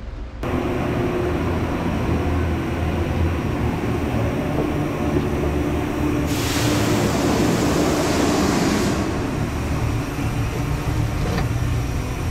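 Steady low hum and rumble of workshop machinery. A hiss rises over it about six seconds in and stops after nearly three seconds.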